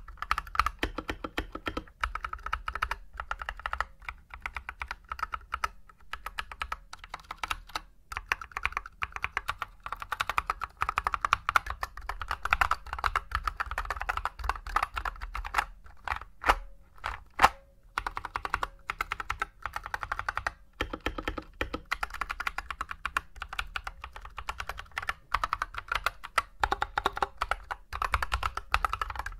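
Typing on an Akko 3098 mechanical keyboard: a fast, dense run of key clicks, broken once about halfway by a short stretch of a few sparser, louder clacks.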